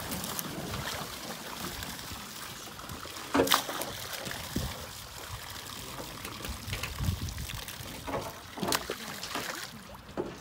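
Water pouring from a fish-transport tank's chute into a pond, splashing on the surface as tench are released, with a few sharper sounds, the loudest about three and a half seconds in. The flow thins to a trickle near the end.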